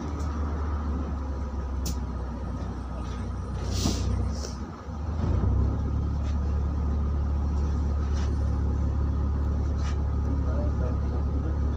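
Engine of a LiAZ 5292 city bus running with a steady low hum, heard from inside the cabin. A short hiss of compressed air comes about four seconds in, and the hum dips briefly and then steadies a little louder just after.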